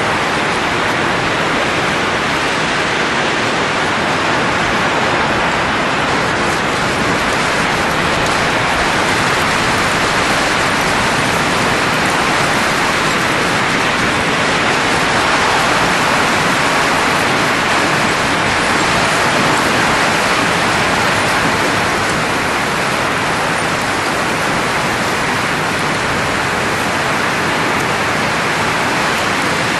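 Steady, unbroken rushing noise of blowing air, without breaks or separate events, swelling slightly in the middle.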